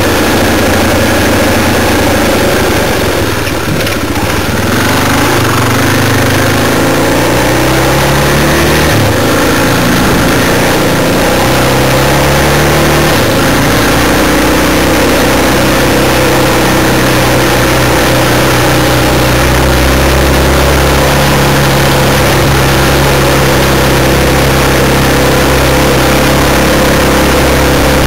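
Trail motorcycle engine running as it is ridden along a rough lane, its pitch rising and falling with the throttle for the first half or so, then steadier. A constant rushing noise runs under it.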